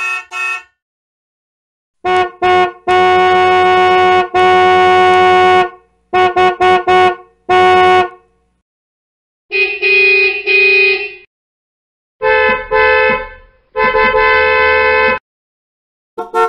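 Car horns honking in a series of separate takes, mixing quick double and triple toots with longer held blasts of about a second or more. Each group is cut off by a silent gap. The later groups, from about halfway in, come from a horn with a different pitch.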